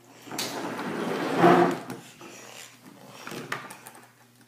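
Plastic wrestling action figures handled and moved on a wooden table by a toy ring: a scraping, rustling rush that peaks about a second and a half in, then a few small clicks and knocks.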